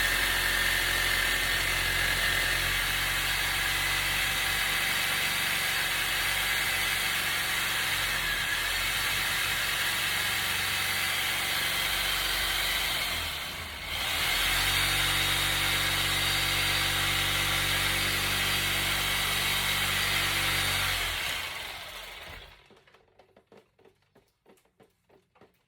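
Power tool cutting through drain pipe, running at a steady speed in two long runs with a brief pause about fourteen seconds in, then winding down near the end.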